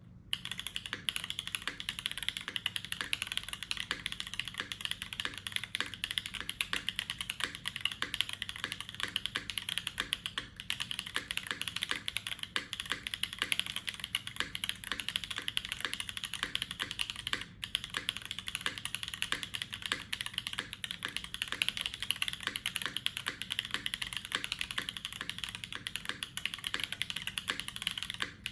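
Fast, continuous typing on a Nika SE Silver top-mount mechanical keyboard with an aluminium plate and Invyr Holy Panda V1 tactile switches, lubed with 3204 and filmed, with 60 g long springs. The keystrokes run as a dense clatter with only a couple of brief pauses.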